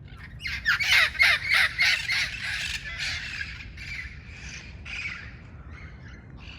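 Red-crowned parrots squawking: a fast run of loud, harsh calls, several a second, over the first few seconds, then fainter scattered calls.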